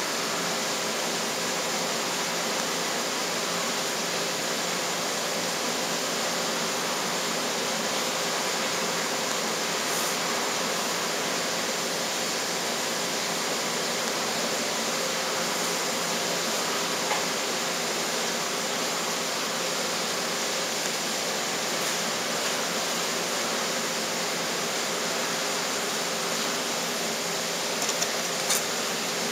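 Steady, even hiss with faint steady hum tones under it, and a few faint ticks near the end.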